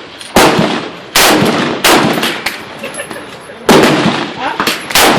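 AR-15 rifle firing five shots. The first three come about three-quarters of a second apart, then after a pause of nearly two seconds come two more. Each report trails off briefly.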